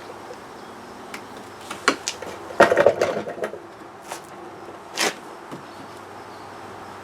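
Scattered clicks and knocks of plastic body trim and clips being pried and handled on a Smart ForTwo's front end, with a short rattling clatter about two and a half seconds in and another sharp knock about five seconds in.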